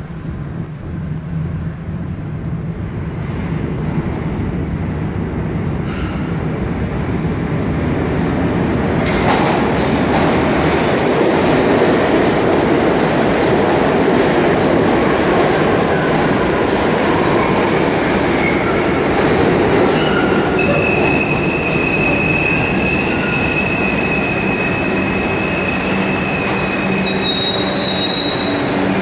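A stainless-steel New York City subway train pulling into a station. The rumble of wheels on track grows over the first ten seconds as it comes in. As it slows, a steady high squeal sets in about two-thirds of the way through, with a second, higher squeal near the end.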